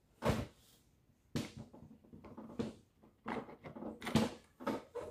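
Plastic and metal parts of an electric sander being fitted together by hand: a run of irregular clicks, knocks and scrapes as the motor's end piece is pushed into the plastic housing.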